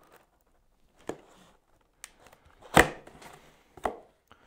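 A cardboard box being opened by hand and with a multitool: a few separate sharp knocks and clicks, the loudest near the middle, with faint scraping and rustling of cardboard between them.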